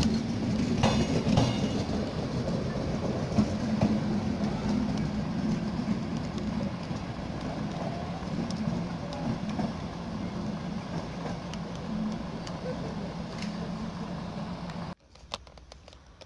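Passenger train coaches rolling past close by, the wheels clicking over rail joints in the first couple of seconds, over a continuous rumble with a steady low hum. About fifteen seconds in the sound cuts abruptly to much quieter outdoor ambience.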